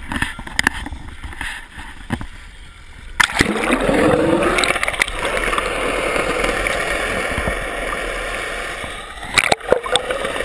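A few knocks and splashes of water against the camera housing. About three seconds in, the camera plunges under the sea surface, and from then on there is a loud, muffled underwater rush and gurgle of water streaming past it, with more knocks near the end.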